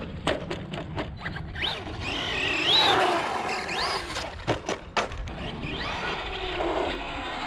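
Brushless electric motor of a 1/10-scale RC monster truck whining as it drives on asphalt, its pitch rising and falling with the throttle, over tyre noise and a few sharp clicks.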